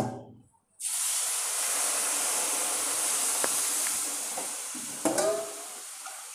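Water poured into a hot kadhai of wheat flour roasted brown in ghee, hissing and sizzling as it flashes into steam. The hiss starts suddenly about a second in and slowly dies down while the mixture is stirred.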